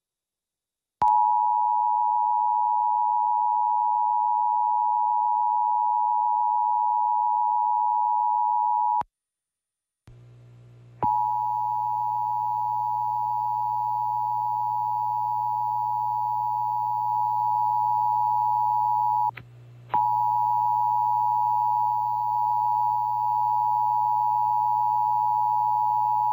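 Emergency Alert System attention signal: the steady two-tone alert tone of 853 and 960 Hz. It sounds for about eight seconds, stops, then comes back twice after short breaks, with a low hum under the later stretches.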